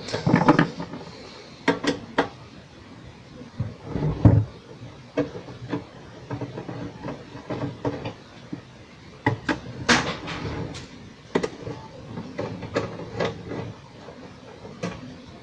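A UPS case being handled and unscrewed on a workbench: scattered clicks and knocks from the screwdriver and the case, with a heavier thud about four seconds in.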